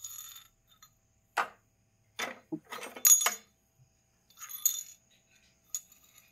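Small bent stainless-steel flat-bar blade pieces clinking and tapping as they are handled and set down on a concrete floor: a handful of separate metallic clinks, the loudest about three seconds in.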